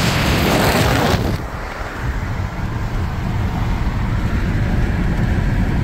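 Car on the move: a steady low road and engine rumble. For the first second or so a loud rushing hiss, like wind on the microphone, lies over it and then cuts off suddenly.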